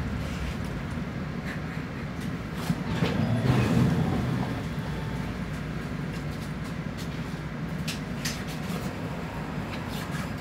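Cabin noise inside a Mercedes-Benz Citaro O530G articulated bus: a steady low rumble of diesel engine and road, with a few short rattles and knocks from the bodywork.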